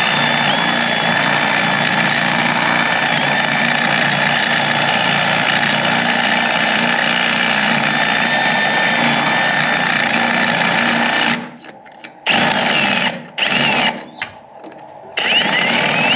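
Electric drill running steadily with a high whine, boring out a mounting hole to take a larger light bolt. It stops about eleven seconds in, gives two short bursts, then runs on again near the end.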